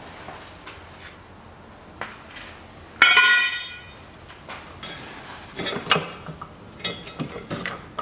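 Steel hand tools clanking on metal: one loud ringing clang about three seconds in, then a run of lighter clinks and knocks.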